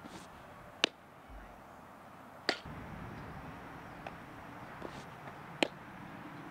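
Softball pitches smacking into a catcher's leather mitt: a sharp pop about a second in and another near the end, with a third sharp crack in between.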